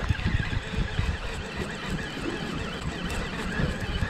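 A conventional fishing reel being cranked, its gears giving a faint repeating whir. Wind buffets the microphone underneath it.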